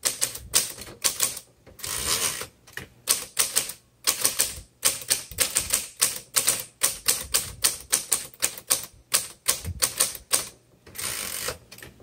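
Manual typewriter being typed at a steady pace: a quick run of sharp key strikes, the typebars hitting the paper at roughly three to four a second, with two longer, rougher sounds about two seconds in and near the end.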